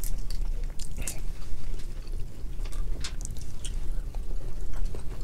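Eating sounds: lips smacking and chewing as shell-on seafood boil shrimp are peeled and eaten, with scattered small wet clicks, over a steady low hum.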